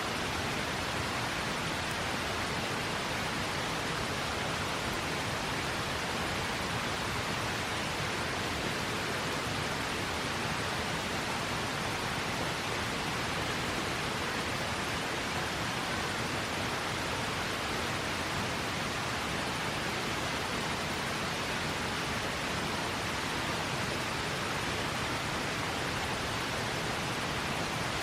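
A river's water rushing in a steady, even roar of noise with no changes.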